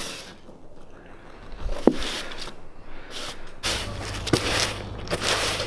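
Plastic-bristled broom sweeping sawdust off a wooden sill plate in irregular brushing strokes, with a small knock about two seconds in.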